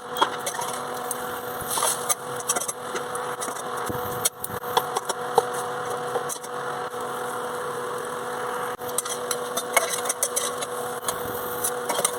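Cooking sounds: scattered clicks, knocks and scrapes, as of a utensil against a pan, over a steady hum.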